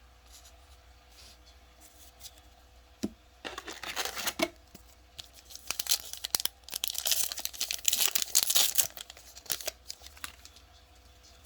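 Trading card pack wrapper being torn open and crinkled, in bursts of tearing and rustling about three and a half seconds in and again from about six to nine seconds.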